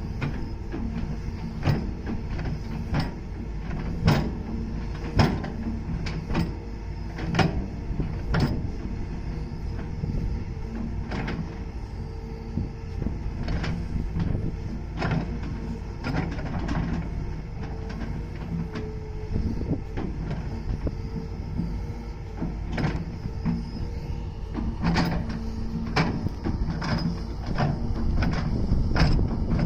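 Hydraulic excavator working: the diesel engine runs steadily under load, with frequent sharp knocks and clanks scattered through it.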